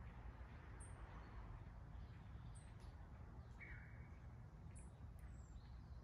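Faint calls of small songbirds: a few short high chirps scattered through, and one brief whistled note a little past the middle, over a steady low rumble.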